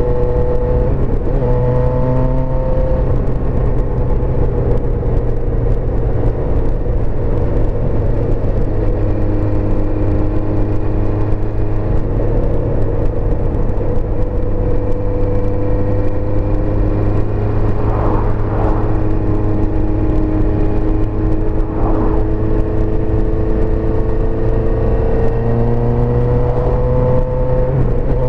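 A 1984 Suzuki GSX-R400's inline-four engine running steadily while riding. Its pitch dips briefly about a second in and again near the end, and otherwise rises slowly.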